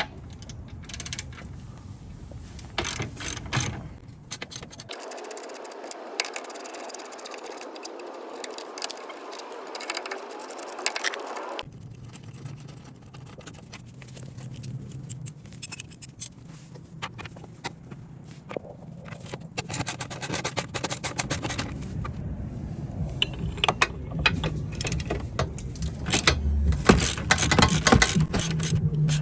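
Hand tools working bolts on a car's front end: socket-ratchet clicking, metal scraping and light knocks, in irregular runs. A stretch of steady hiss-like noise takes over for several seconds in the middle.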